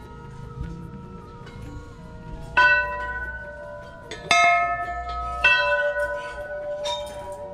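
Large hanging metal temple bells struck four times, a second or so apart. Each strike rings on in several steady tones that overlap the next.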